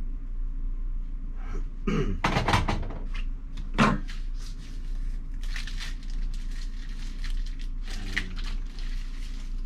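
Hard plastic knocks and clatter as a reverse osmosis filter housing and cartridge are handled, the sharpest knock about four seconds in, followed by several seconds of light rustling as the carbon block cartridge is turned in the hands. A steady low hum runs underneath.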